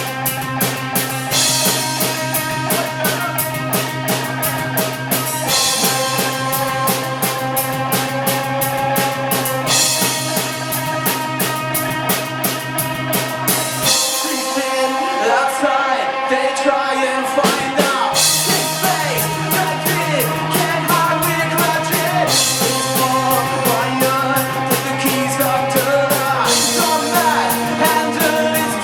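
Live rock band playing loud: drums with steady cymbal strokes, sustained guitar chords and a held bass line. About halfway through, the bass and cymbals drop out for a few seconds, leaving bending guitar lines, then the full band comes back in.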